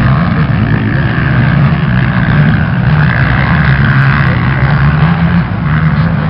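Racing ATV engine noise: a loud, steady engine drone whose pitch rises and falls slightly.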